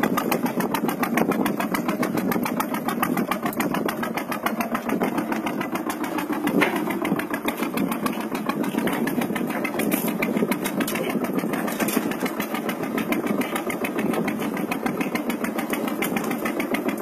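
Boat engine running steadily at a fast, even beat, with no change in speed.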